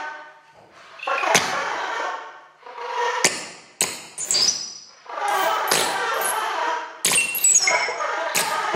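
Free-improvised saxophone with live electronics: a string of short, breathy, noisy phrases with some held tones inside them, broken by short gaps and cut through by many sharp clicks and pops.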